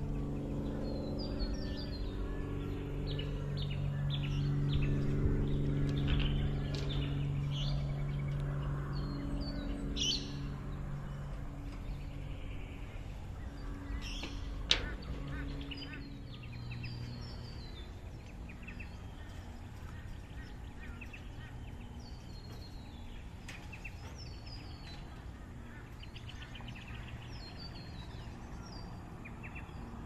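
Wild birds calling and chirping in eucalypt bushland, with repeated runs of quick falling chirps. A low engine hum sits under them at first and fades away about halfway through, and there is one sharp click about halfway.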